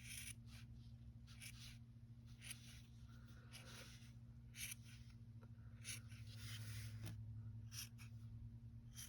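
Scissors snipping through acrylic yarn: faint, short, irregular snips about once a second, over a steady low hum.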